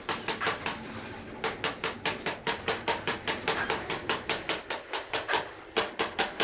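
Rapid hammer blows in a steady rhythm, about five a second, with a brief pause about a second in.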